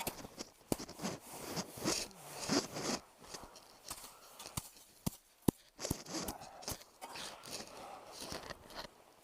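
Deep snow crunching and scraping as it is dug out by hand for a small snow shelter, with irregular sharp clicks and patches of scratchy noise.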